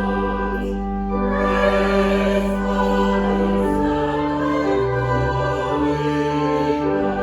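Music of sustained chords, with held notes changing every second or two, with what may be choral voices.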